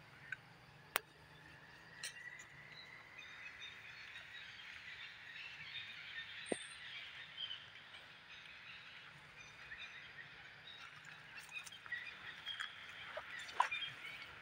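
Faint forest ambience: a steady, high chirping chorus, with a few brief sharp clicks scattered through it.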